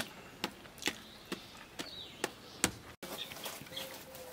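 Sharp knocks evenly spaced about twice a second that stop abruptly about three seconds in. After that a bird coos faintly.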